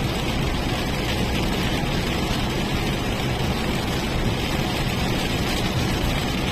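Car driving along a road: a steady rush of road and engine noise with a low hum.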